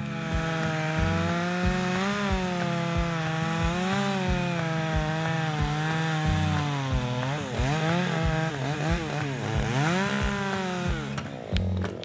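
Chainsaw cutting into a tree trunk, its engine pitch sagging and recovering as the chain bites, with a few deep dips in the second half before it eases off near the end. A steady bass beat of background music runs underneath.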